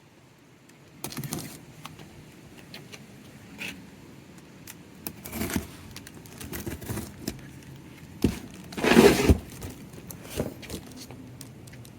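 Irregular rustling and clattering of packaging and parts being handled while a boxed cordless chainsaw is unpacked, the loudest clatter about nine seconds in.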